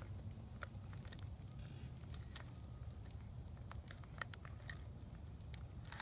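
Swiss Army knife's hook-type can opener blade cutting around the lid of a tin can in short forward strokes: scattered small clicks, faint over a low steady rumble.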